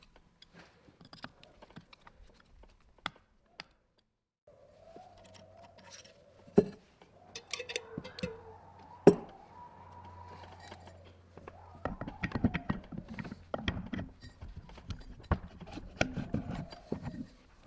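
A few light screwdriver clicks on the end-cover screws of a 1930s Leland Electric motor, then two sharp metal knocks and, through the second half, a run of rattling clunks as the armature with its commutator and fan is worked into the cast stator housing.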